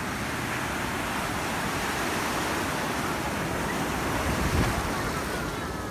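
Ocean surf breaking and washing through the shallows: a steady rush of water that swells loudest about four and a half seconds in.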